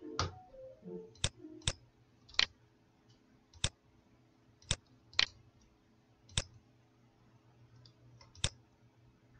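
Computer mouse clicks, about nine sharp single clicks at irregular intervals, some a half-second apart, over a faint steady hum.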